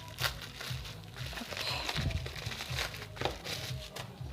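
Background music with a steady low beat, over light crinkling of plastic packaging and a few small clicks as the packaged cross-stitch kit is handled.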